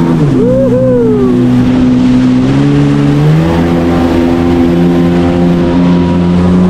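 Jet ski engine running, its pitch dropping as it eases off at the start, holding low, then rising again as it speeds up about three seconds in. A second, higher engine tone briefly rises and falls in the first second or so.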